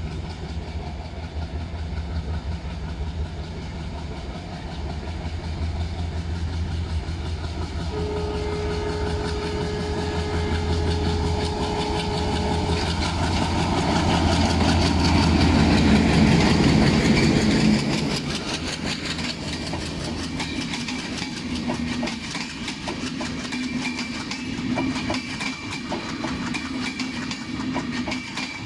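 Diesel locomotive approaching at speed with a deep engine rumble, sounding one long steady horn note from about eight to thirteen seconds in. The engine is loudest as it passes about halfway through, then the passenger coaches run by with a rapid clickety-clack of wheels over the rail joints.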